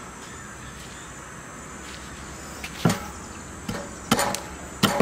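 A large kitchen knife chopping a cooked squirrel on a wooden cutting board: four sharp strikes, starting about three seconds in and coming roughly half a second to a second apart.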